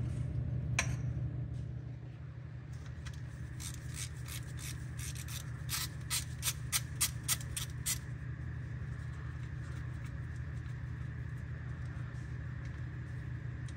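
A series of short hissing squirts from a can of Kroil penetrating oil, sprayed onto rusted, broken bolts to free them, coming quickly one after another in the middle and loudest near the end of the run. Under them runs a steady low hum.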